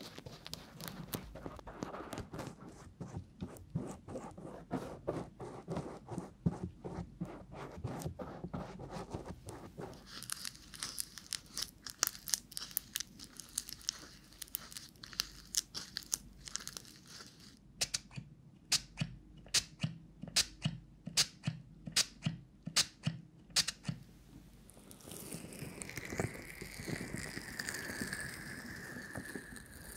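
Close-miked ASMR trigger sounds on a 3Dio binaural microphone: a brush crackling over the microphone's ear, then stirring in a bowl with a run of sharp separate clicks, and near the end hands rubbing softly over the ears.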